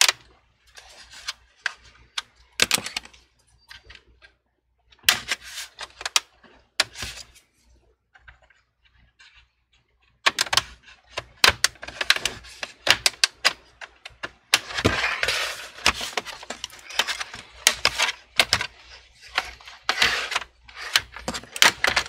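A plastic pry tool working around the edge of a laptop's plastic bottom cover, the cover's clips clicking and snapping as they come loose, with scraping between them. Scattered clicks at first, a brief lull, then a dense run of snaps and scraping from about halfway through.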